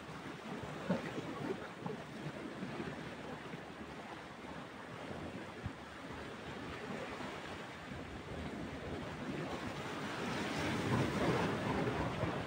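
Sea surf washing and breaking against shoreline rocks, with some wind; the wash swells louder in the last few seconds.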